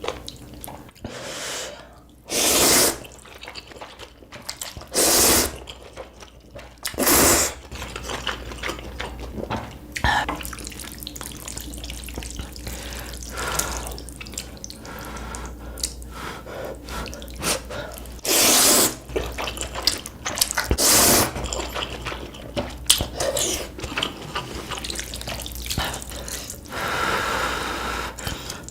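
Ramen noodles being slurped in about six loud, short slurps, close to the microphone, with wet chewing and mouth clicks between them.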